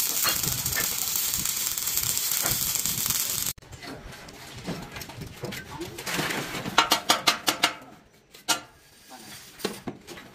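Electric arc welding, a steady crackling hiss that cuts off abruptly about three and a half seconds in, followed by a quick run of sharp taps.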